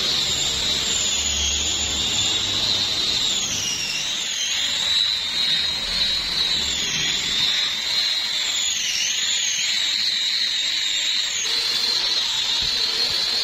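High-pitched whine of a power tool's motor, running steadily, with its pitch dipping briefly several times.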